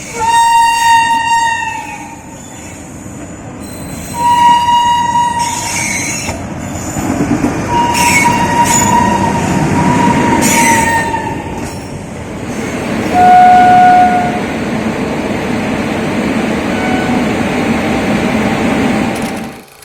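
Indian Railways train horns sounding in several blasts: a short one at the start, another about four seconds in, a long one from about eight seconds, and a lower-pitched, loudest one a little past thirteen seconds. Under them is the rumble of a running train with a few brief high screeches, and the sound cuts off sharply near the end.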